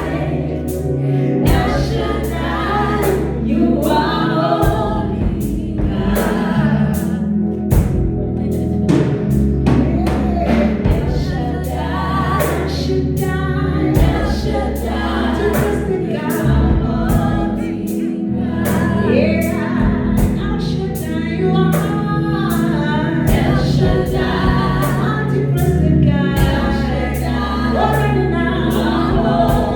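Gospel worship song: a choir singing over held bass notes and a steady beat.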